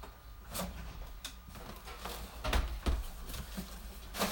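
Cardboard shipping box and the boxed item inside it being handled and lifted: scattered knocks, scrapes and rustles, with a few dull thumps about two and a half to three seconds in.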